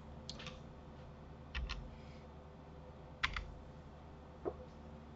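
Computer keyboard keys and mouse buttons clicking faintly: three quick pairs of clicks spaced over a few seconds, then a softer knock near the end.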